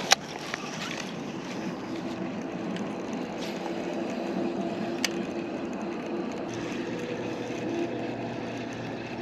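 Electric trolling motor running at steady speed with an even hum. A sharp click comes just at the start and another about five seconds in.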